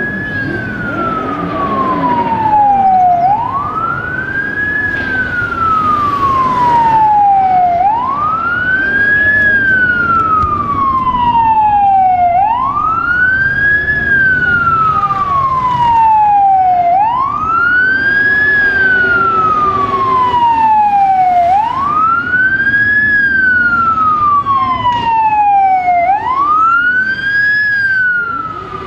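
Police van's siren wailing slowly: each cycle rises quickly and falls off more slowly, about every four and a half seconds, repeated about six times. Under it runs the low rumble of a column of motorcycles and cars.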